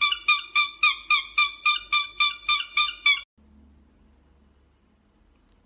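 Cockatiel calling in a rapid run of identical high chirps, about three or four a second, which stops abruptly a little past three seconds in, leaving only faint room sound.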